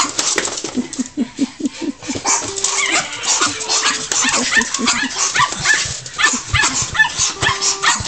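Miniature pinschers barking and whining in quick short yips, with frequent sharp clicks and knocks.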